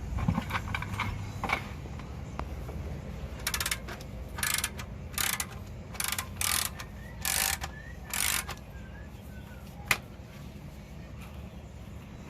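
Ratchet wrench clicking in short runs, about seven strokes a few tenths of a second each, as bolts are worked loose during transmission removal; a few metal clinks come first and a single sharp tick near the end.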